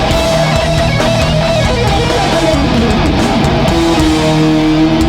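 Hardcore metal band playing live, loud distorted electric guitars over bass and drums. A note slides downward about halfway through, then a single note rings on, held, near the end.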